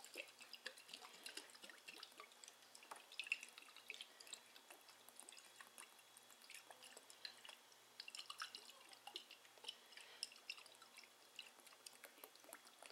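Faint, irregular drips and small ticks as Worcestershire sauce is shaken from its bottle onto raw steaks.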